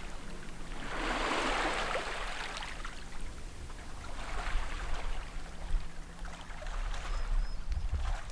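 Small sea waves washing in, a soft swell of water noise every few seconds, over a steady low rumble.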